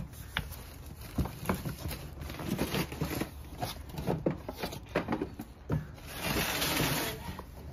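Cardboard grill box and packaging being handled: a run of scrapes, rustles and light knocks, with a longer rasping scrape about six seconds in that lasts around a second.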